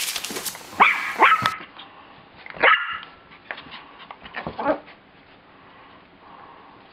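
Maltese x shih-tzu puppies giving short, high-pitched yips and barks: a few in the first three seconds, the loudest about two and a half seconds in, then fainter yips near five seconds.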